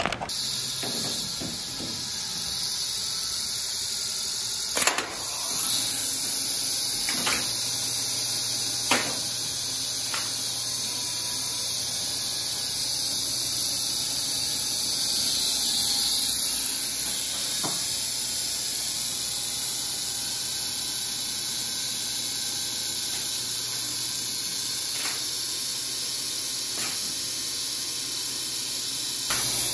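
The machine-room equipment of a 1920s Otis elevator, its electric motors and traction machine, running with a steady high hiss over a low hum. A few faint clicks come through now and then.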